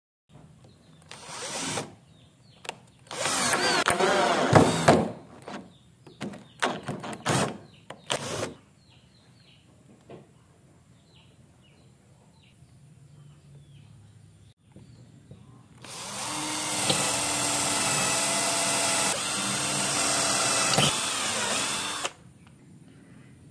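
Electric drill running in several short bursts with a wavering pitch, then in one longer steady run of about six seconds.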